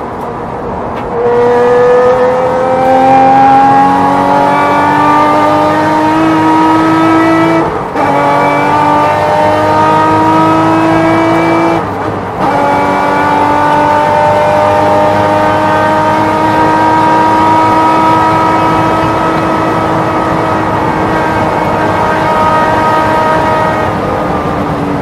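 Porsche race car engine at full throttle, its pitch climbing through the gears. Two quick upshifts come about eight and twelve seconds in, then a long steady pull that eases off slightly near the end.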